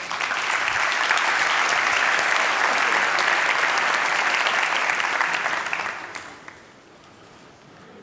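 Large audience applauding, a dense round of clapping that dies away about six seconds in.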